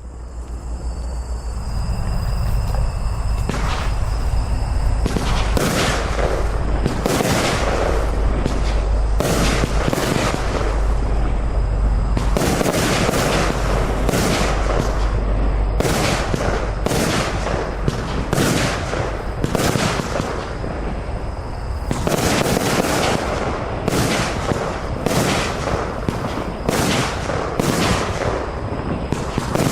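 COBALT fireworks cake (battery) firing its shots one after another, about one a second, with crackle between the reports. The firing thins briefly about twenty seconds in, then picks up again more densely.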